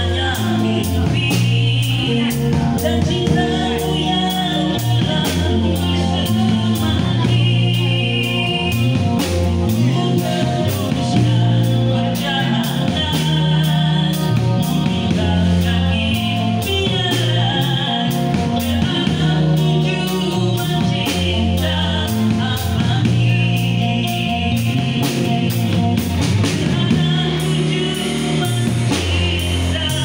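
Live rock band playing: drum kit with a steady beat and crashing cymbals, electric guitars and bass, and a man singing into a microphone.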